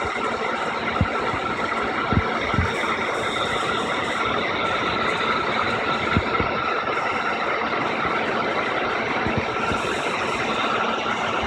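Handheld hairdryer running steadily on high heat: a constant rush of air with a faint whine over it. A few soft knocks come in now and then.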